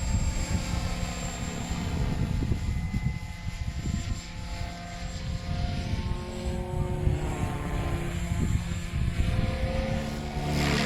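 SAB Goblin 580 electric RC helicopter in flight, its rotor and motor whine sliding up and down in pitch as it moves about. Strong gusty wind rumbles on the microphone under it.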